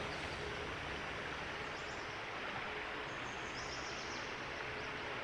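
Steady rush of floodwater flowing over ground, with a few faint high bird chirps in the second half.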